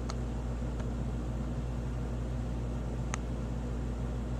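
Steady rushing noise under a low, even hum, with three faint ticks.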